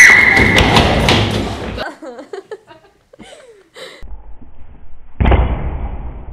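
A loud scream and a clatter of knocks and thumps as a person falls down a stairway, then a few short faint vocal sounds and a single loud thud about five seconds in.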